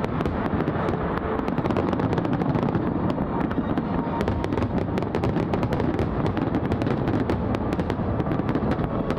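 Large fireworks display finale: a dense, continuous barrage of aerial shell bursts, many sharp reports a second over a constant low rumble.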